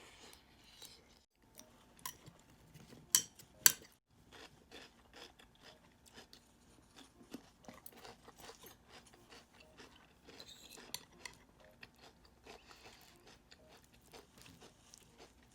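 Close-miked eating sounds: irregular chewing and crunching, with two sharp clinks of cutlery or dishes about three seconds in.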